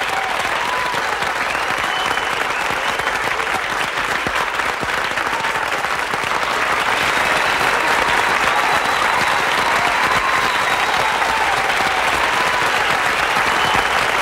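A theatre audience applauding a live stage performance at its curtain call: a dense, steady clapping that grows louder about halfway through.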